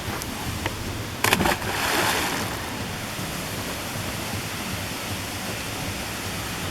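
Steady rushing water, with a short sharp clatter just over a second in.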